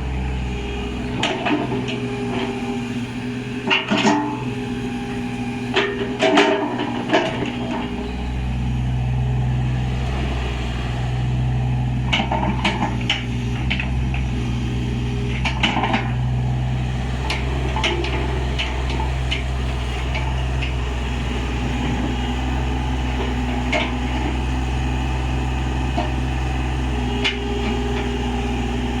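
Kubota KX101-3A mini excavator's diesel engine running, its low hum getting louder and steadier about eight seconds in, with scattered sharp metallic knocks and clanks.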